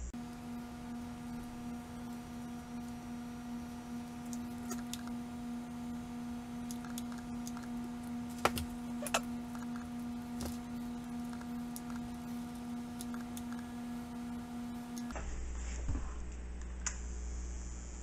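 Steady electrical buzz of a transformer soldering gun switched on and heating, with a few sharp clicks; the buzz cuts off suddenly about fifteen seconds in.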